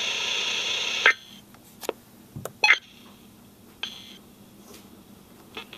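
Weather-radio receiver hiss that cuts off about a second in. A few short electronic data bursts follow, roughly a second apart: the EAS/SAME end-of-message tones that close a NOAA Weather Radio alert.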